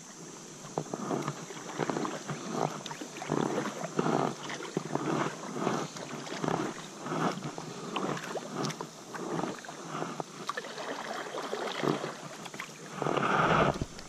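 Water lapping and splashing against a plastic fishing kayak's hull as it drifts, in soft, even pulses about twice a second. A louder rustle comes near the end.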